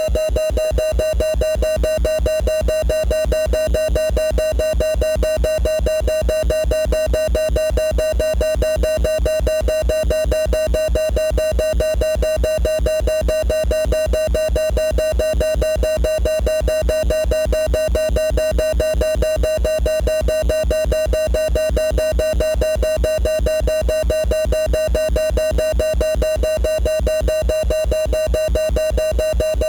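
Synthesized sci-fi 'space siren' sound effect: a steady electronic tone that holds one pitch and throbs in a fast, even pulse, several pulses a second, with no rise or fall.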